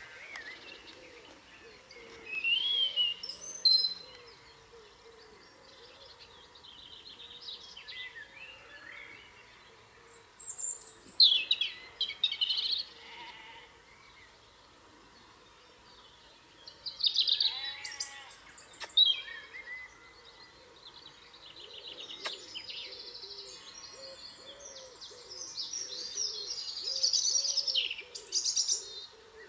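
Dawn chorus of wild songbirds: bursts of loud warbling song every several seconds, with quieter stretches between. A single sharp click sounds a little past the middle.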